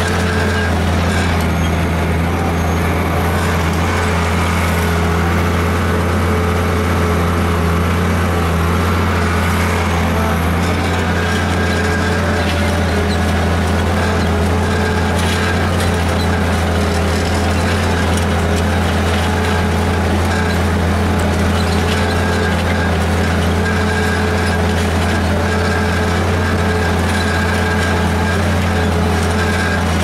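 Tractor engine running steadily under load, pulling a multi-bottom moldboard plow through the ground, a constant low drone.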